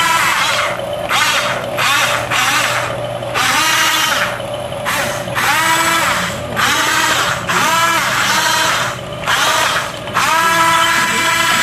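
Small electric drive motors and gearboxes of a modified toy RC crawler on tank tracks whining in repeated short bursts as it drives and turns. The whine rises in pitch each time the motors speed up.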